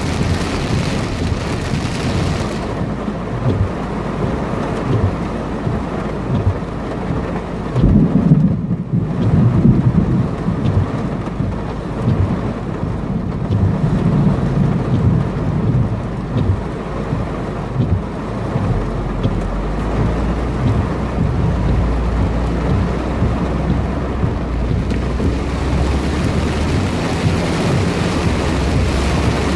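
Heavy thunderstorm downpour with thunder rumbling, the rumble strongest about eight to ten seconds in and again a few seconds later. A steady low hum joins about two-thirds of the way through.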